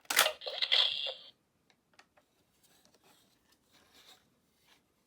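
A Buzz Lightyear action figure being worked by hand: a sharp plastic click at the start and about a second of high hissing sound, then faint scattered clicks and rubbing of the plastic toy being handled.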